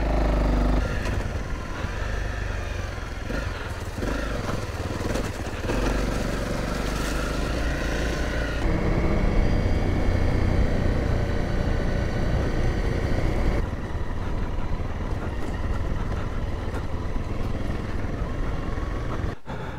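Honda CRF dual-sport motorcycle's single-cylinder engine running as the bike is ridden along a trail, its tone shifting with the throttle about nine seconds in and again near fourteen seconds. It drops off just before the end.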